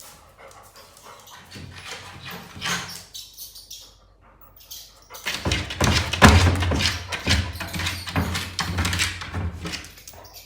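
A pet dog barking and whining in reaction to a played mouse-squeak sound effect. The sounds are faint at first and turn loud and rapid about halfway through.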